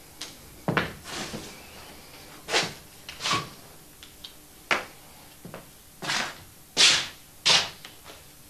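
Paintbrush working a canvas: about a dozen quick swishes and slaps at an irregular pace, the loudest about seven seconds in.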